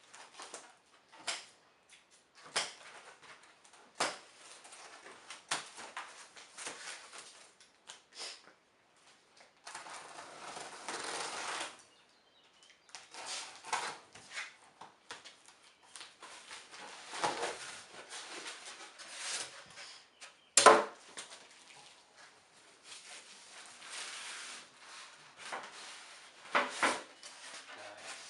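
Handling sounds from unpacking and assembling a metal tool chest: irregular knocks, clicks and rattles. A steady rasp lasts about two seconds a little before halfway, and a single louder knock comes about two-thirds of the way through.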